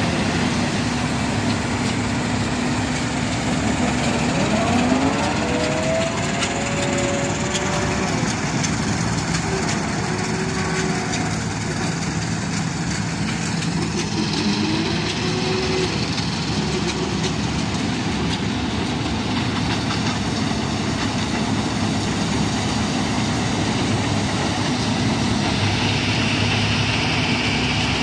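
Combine harvester running steadily while cutting and threshing wheat: a continuous engine drone under the dense noise of the header and threshing works.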